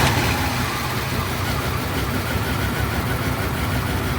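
Dodge Ram 1500's 5.2-litre V8 idling steadily just after firing up. The engine is running again now that a new distributor cap has cured its no-spark, crank-no-start condition.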